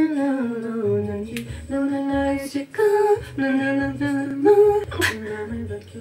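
A woman singing along to a song, holding long notes, some of which slide down in pitch, with short breaks between phrases.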